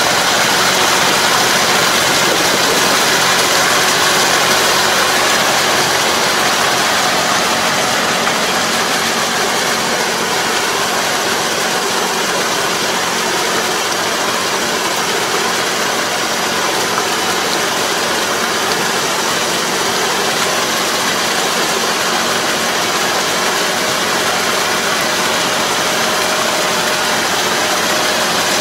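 Kubota KL270 half-crawler tractor's diesel engine running steadily under load as it pulls a Kobashi 3 m harrow through a flooded rice paddy, puddling the mud.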